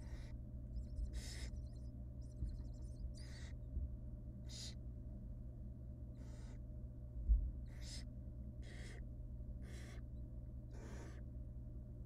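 Barn owl nestlings giving their hissing begging calls: short, breathy rasps about once a second while the female tears food for them. A steady low hum runs underneath, and one dull thump comes about seven seconds in.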